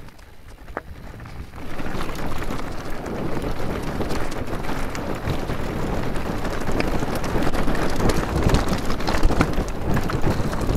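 Mountain bike tyres rolling fast over loose gravel and stones, a dense crunching rumble with wind buffeting the action-camera microphone. It is quieter for the first couple of seconds, then much louder as the track turns rockier.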